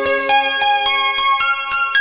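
Background music on bright mallet percussion: a quick run of struck, ringing notes, about four a second.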